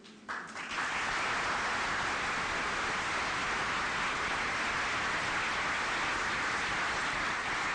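Audience applauding: a few separate claps about a third of a second in quickly swell into steady, dense applause.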